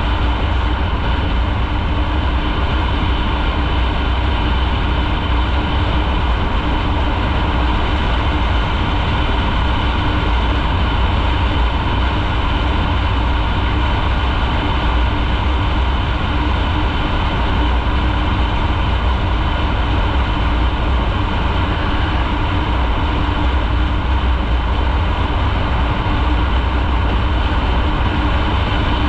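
Motorcycle being ridden at a steady speed: the engine's even hum over heavy rumbling wind and road noise.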